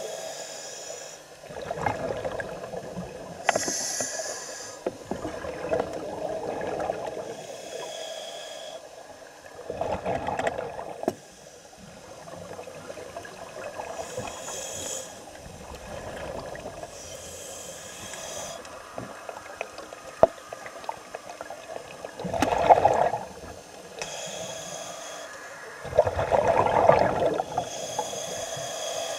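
Scuba diver breathing through a regulator underwater, repeating every few seconds: a hissing inhalation, then a rush of bubbling exhaled air.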